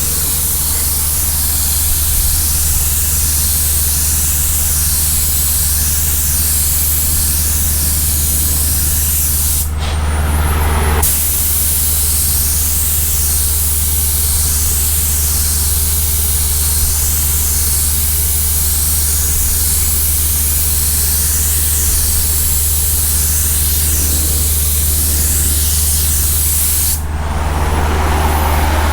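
Paint spray gun hissing steadily as primer is sprayed, with a steady low hum underneath. The hiss breaks off briefly about ten seconds in and again near the end.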